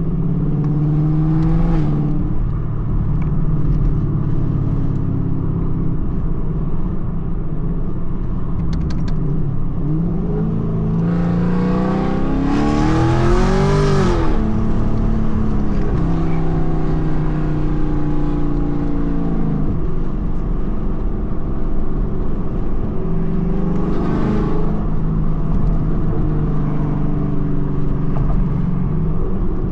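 Ford Mustang GT's 5.0 V8 running while the car is driven, a steady drone with the engine note climbing and dropping through the gears. The strongest acceleration comes about ten seconds in, and a shorter one follows later.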